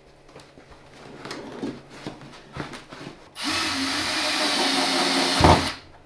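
A few light knocks and clicks of handling, then a cordless drill runs steadily for about two seconds, driving a screw to fix a pull-out basket runner inside a wooden cupboard, ending with a heavy knock.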